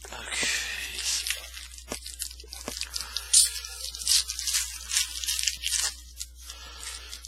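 Foil wrapper of a Topps Chrome football card pack being torn open and crinkled, in irregular bursts of crackling that die down about six seconds in.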